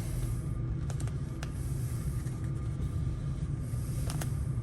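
Steady low machine hum, with a few light clicks and a soft hiss that comes and goes.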